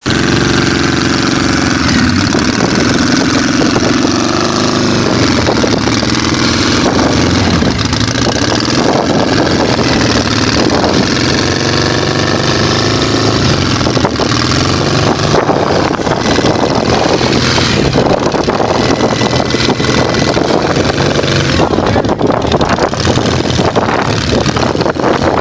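Side-by-side off-road vehicle's engine running under load as it crawls up a steep rock slope, its pitch rising and falling with the throttle.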